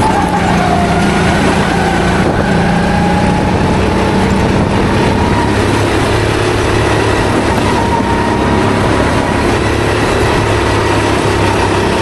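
Onboard sound of a rental go-kart at racing speed: its engine runs steadily at high revs, the pitch dipping and rising a little, over a constant rush of wind and track noise.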